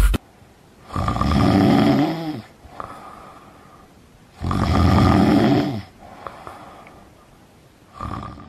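A person snoring: two long snores about three and a half seconds apart, each sinking in pitch as it ends, and the start of a fainter one near the end.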